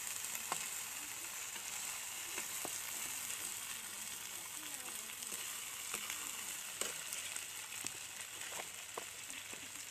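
Locusts sizzling as they fry in a steel kadai, with a steady hiss and a metal ladle stirring through them. A few sharp clicks stand out at scattered moments.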